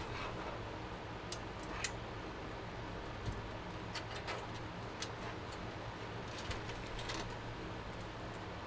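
Sleeved PC power cables being handled and tucked into the back of a steel computer case: scattered light clicks and taps, the sharpest about two seconds in, over a steady low hum.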